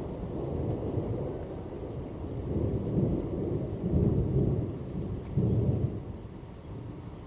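Thunder rolling in a long low rumble that swells in several surges, about three, four and five and a half seconds in, then dies away, with rain falling.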